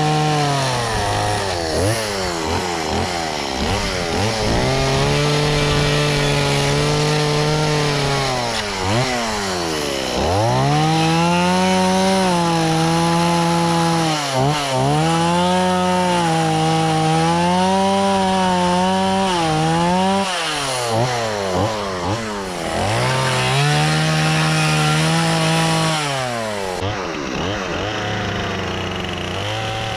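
Two-stroke chainsaw carving into a redwood log. The engine runs at high revs and its pitch sags again and again as the chain bites and bogs down, then climbs back as it frees. Near the end it drops to a lower, steady idle.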